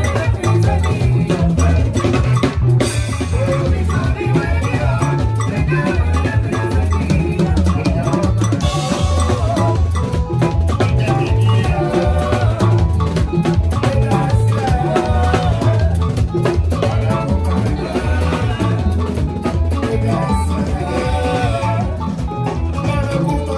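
Live band playing a groove: drum kit with bass guitar and electric guitar.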